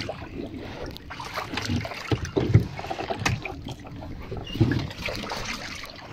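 Water splashing and lapping around a small boat, with a few sharp knocks.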